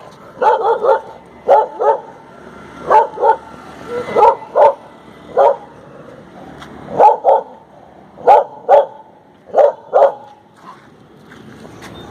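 Female desi (Indian street-type) dog barking in quick runs of two or three barks, a run about every second and a half.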